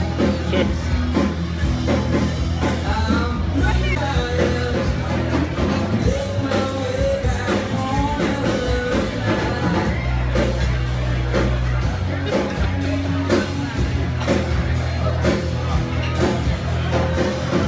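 A rock-style song playing, with a singer over a steady drum beat and a bass line.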